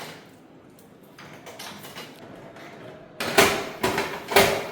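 Low room noise, then three sharp clattering rattles in quick succession about three seconds in, like a small hard object being handled or shaken.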